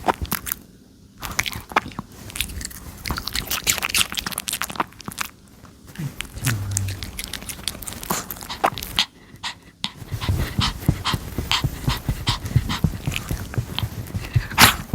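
A Pomeranian chewing crisp Japanese pear: a series of wet crunches and bites, with brief pauses between mouthfuls.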